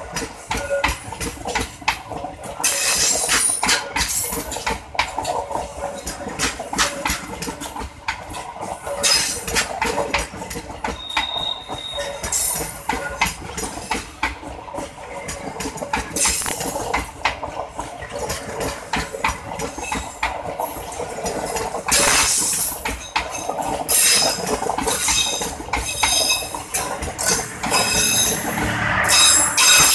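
Passenger train coaches rolling past close by, their wheels clattering in an irregular run of clacks over the rail joints. Brief high squeals from the wheels cut in a couple of times.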